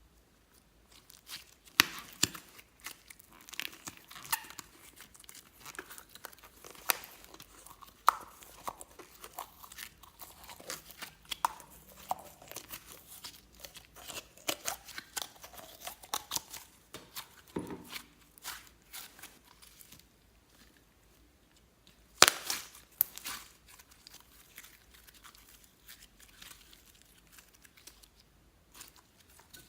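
Hands kneading and stretching clear slime, giving off irregular sticky crackles and sharp popping clicks, with a loud cluster of pops about two-thirds of the way through.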